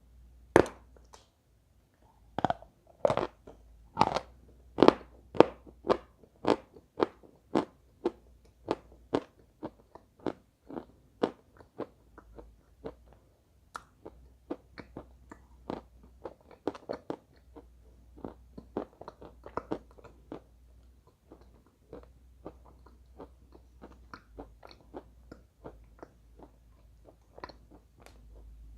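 Close-up crunching of dry eating chalk being bitten and chewed, sharp crunches about twice a second. The crunches are loudest in the first ten seconds, then softer and closer together as the pieces are chewed down.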